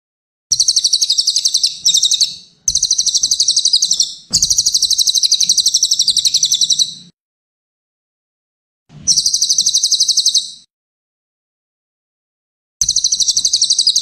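Cililin bird singing: fast, high, rapidly pulsed trills at about eight notes a second, in phrases of half a second to three seconds with short silent pauses between them.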